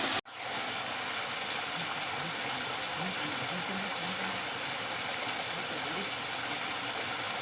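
Steady rushing of water from a mountain spring and waterfall. It starts after a sudden brief cut-out just after the beginning.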